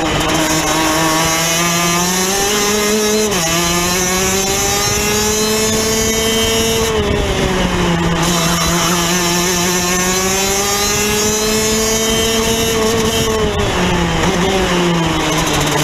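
Rotax DD2 kart's 125 cc two-stroke engine at racing speed, heard from on board: its pitch climbs, drops sharply about three seconds in, falls again about halfway and once more near the end, climbing back up each time as the kart slows for corners and accelerates out.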